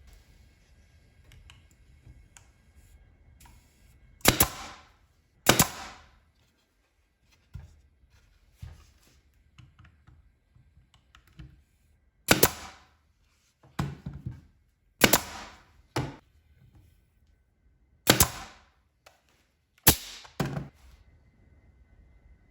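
A series of about nine sharp, loud bangs, irregularly spaced with gaps of one to several seconds, some coming in close pairs, each followed by a short fading tail.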